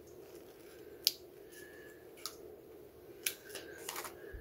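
A sticker sheet being handled over planner pages: a few light, sharp clicks and paper rustles, one about a second in and a cluster near the end, over a faint steady hum.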